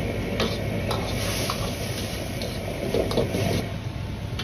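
Seasoned sauce boiling and sizzling in a wok around pieces of pan-fried tofu, with a few light clicks of a utensil against the wok.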